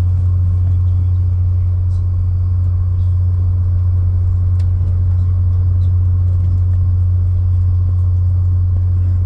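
Steady low rumble and hum of a moving train heard from inside the carriage, with a few faint ticks over it.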